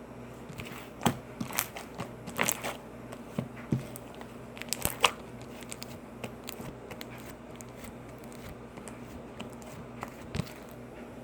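Homemade glue slime being kneaded and squeezed by hand, giving irregular sharp pops and crackles, most of them in the first half and a couple more near the end, over a low steady hum.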